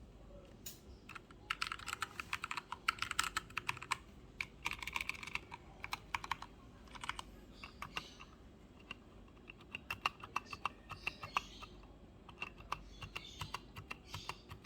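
Typing on a Keychron K2 mechanical keyboard: runs of quick key clicks with short pauses between them.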